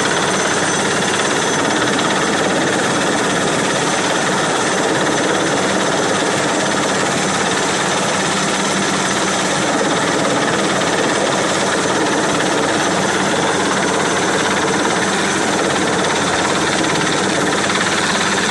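Helicopter running, a loud, steady, unbroken noise of rotor and engine.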